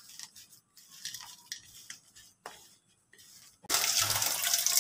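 Hand squeezing and mixing grated cassava in a ceramic plate, with faint squishing and small clicks against the plate. About three and a half seconds in, a steady hiss of running water starts and becomes the loudest sound.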